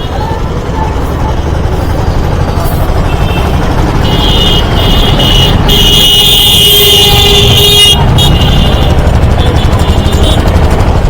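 Road traffic: a steady low rumble of vehicles, with horns honking, one held for several seconds from about four to eight seconds in.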